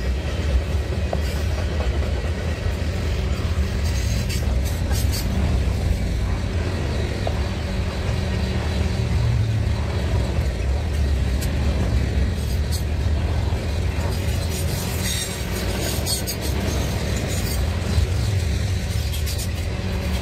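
Freight train of tank cars and covered hoppers rolling past: a steady rumble of steel wheels on rail, with scattered sharp clicks.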